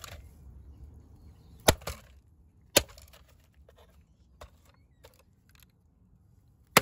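Hammer blows on the plastic body of a handheld vacuum cleaner: three sharp hits, the last the loudest, with a few faint knocks and rattles between them.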